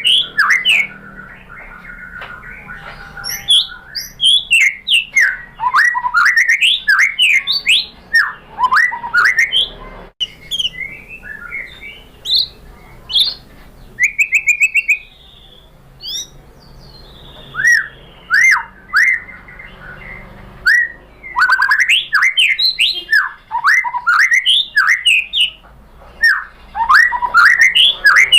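White-rumped shama singing: dense phrases of quick, sharply sweeping whistled notes, with short pauses between phrases.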